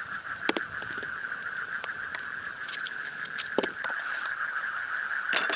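Scattered sharp clicks and taps of a knife cutting onion and tomato on a plastic plate and of gear being handled, over a steady high-pitched drone.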